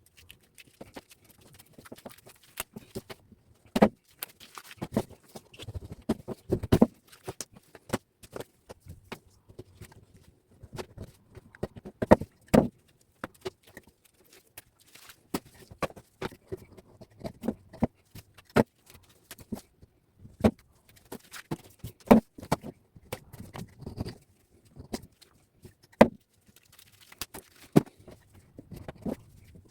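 Scrap copper wires being fed through a wire stripper machine and handled: irregular clicks and knocks, a few sharp ones every few seconds, with light rustling of wire between them.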